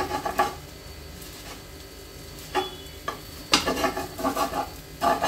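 Metal spatula scraping and chopping against a flat griddle (tawa) as an omelet sandwich is cut into pieces, over a faint steady sizzle. There are several short scrapes: one at the start, one about two and a half seconds in with a brief metallic ring, and the busiest run between about three and a half and four and a half seconds in.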